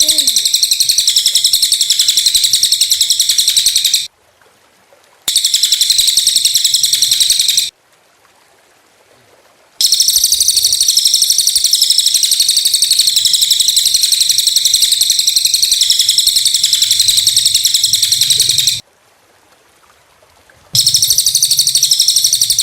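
Small songbirds' high-pitched, rapid-fire chirping trills, the sharp 'tembakan' calls used as masteran for training white-rumped shamas. The trilling stops abruptly three times, about four seconds in, around eight seconds in and near the end, each time for a second or two before resuming.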